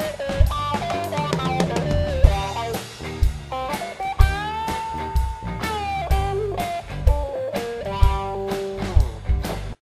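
Blues-rock band music: an electric guitar plays a lead line with string bends and a long held note over bass and a steady drum-kit beat. The sound drops out for a split second near the end.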